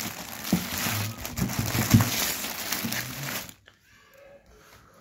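Plastic-wrapped packets of braiding hair rustling and crinkling as the cardboard box that holds them is handled close to the microphone, with a few dull knocks. The rustling is loud and stops suddenly a little past halfway.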